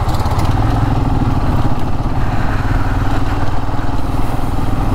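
Motorcycle engine running steadily under way, a dense low pulsing over road and wind noise, while riding a rough, broken stretch of road.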